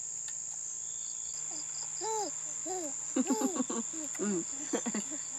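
Insects (crickets or cicadas) keep up a steady high-pitched buzz. Over it, a toddler makes a string of short babbling sounds that rise and fall in pitch, and a spoon clicks against a small metal bowl several times in the second half.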